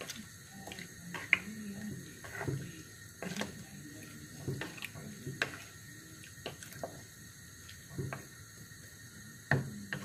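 Wooden spoon stirring wet meat, onion and tomato in an earthenware handi: wet stirring with scrapes and irregular knocks of the spoon against the clay pot, a flurry of knocks near the end.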